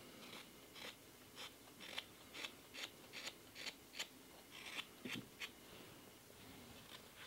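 Carving knife paring thin shavings off a green sycamore cup: about a dozen short slicing cuts, roughly two a second, stopping about five and a half seconds in.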